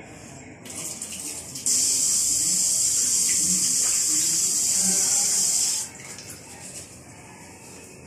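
Washbasin tap turned on and water running steadily over hands into the sink for about four seconds, then cut off abruptly.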